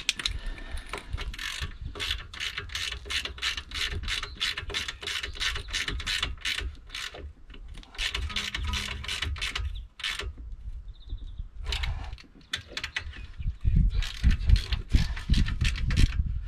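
Hand ratchet clicking in quick, even runs as a bolt on a car's front strut is tightened, with a pause about halfway. In the last few seconds the clicks come with heavier knocks.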